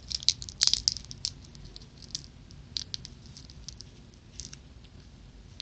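Toxic Waste candy packaging being worked at by hand as it refuses to open: scattered crinkling and clicking, busiest in the first second and a half, then sparse.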